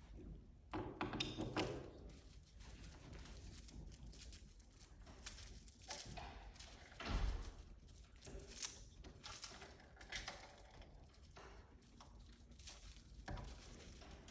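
Faint knocks and clicks of door hardware being handled and fitted: a thumb-turn privacy escutcheon going into an interior door, with a louder knock about a second in and another about seven seconds in.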